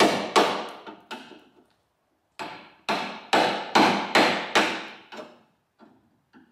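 Hammer striking a chisel to chip thick, cracked body filler off the steel front guard of a Holden Torana GTR XU-1. Sharp metallic strikes come about two or three a second, each ringing briefly. After the first four there is a pause of about a second, then a longer run, and two faint taps near the end.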